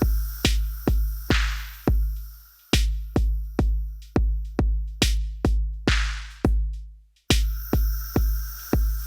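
Drum-machine loop from an Elektron Digitakt: deep electronic kick hits about twice a second, each decaying quickly, with a hissy noise swell once per bar. The loop repeats about every four and a half seconds, with a short drop-out just before it starts again.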